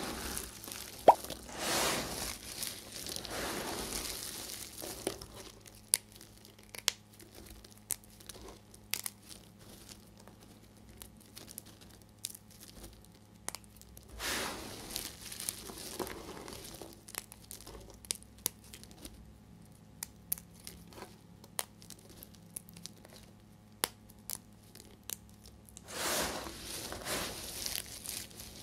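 Dry soap flakes and shavings crushed and scooped by hands: bursts of crunching, crinkling rustle near the start, in the middle and near the end, with scattered sharp clicks of chips snapping and dropping between them.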